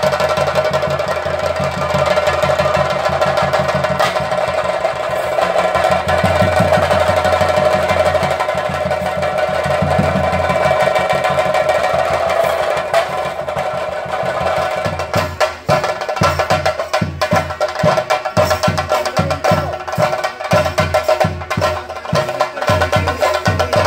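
Chenda drum ensemble accompanying a Theyyam dance: several drummers keep up a dense, continuous roll under a steady ringing tone, breaking about fifteen seconds in into separate, evenly spaced strokes several times a second.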